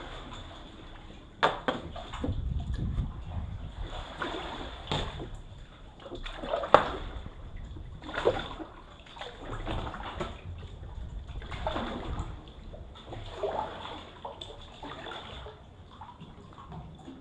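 Sea water splashing and sloshing around a kayak and against rock, coming in swells every second or two. A sharp knock is heard about a second and a half in and another near seven seconds.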